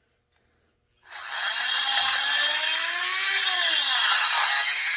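A rotary grinding tool cutting into the aluminum ports of a McCulloch S550 chainsaw cylinder. It starts about a second in and then grinds steadily, its motor pitch rising and falling a little midway. It is run fairly slowly so the bit does not gum up with aluminum.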